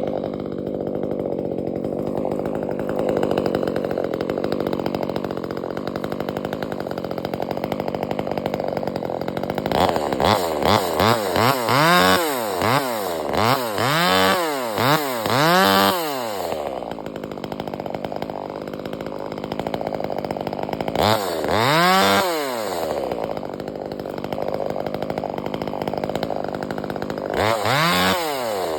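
Two-stroke gasoline chainsaw running at a steady low speed, then revved in a quick string of about seven throttle blips, settling back and revved once more a little past the middle and again near the end.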